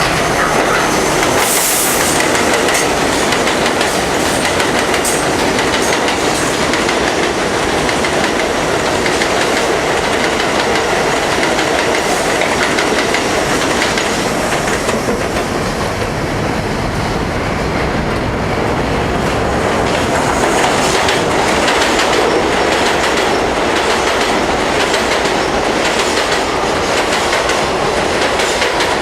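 New York City Subway 7 trains on the elevated Flushing line, one express running through the station and another train pulling in. The steel wheels clatter steadily and loudly over the rails.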